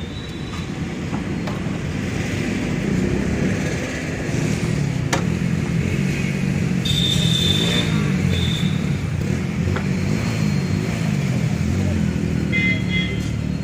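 Motorcycle engine running while riding in traffic, its pitch rising and falling with the throttle. Short high beeps sound about halfway through and again near the end.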